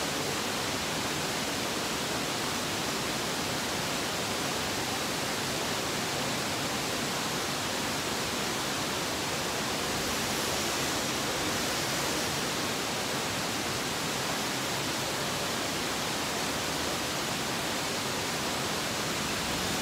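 Steady, even rushing noise with no distinct knocks, voices or tones.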